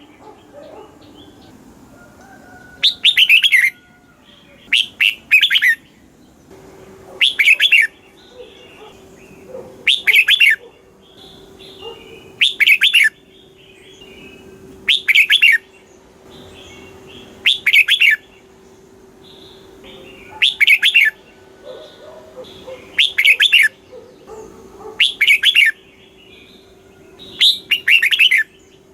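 Red-whiskered bulbul singing short, loud, whistled phrases again and again, about one every two to two and a half seconds, with a faint steady hum from about six seconds in.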